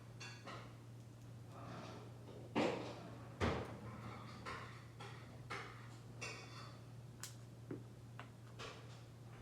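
Small clicks and taps of lock parts being handled as the driver pins are worked out of a disassembled padlock, with two louder knocks about two and a half and three and a half seconds in, over a steady low hum.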